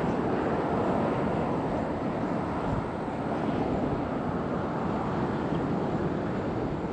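Steady rushing outdoor noise of wind and distant road traffic, with no distinct events.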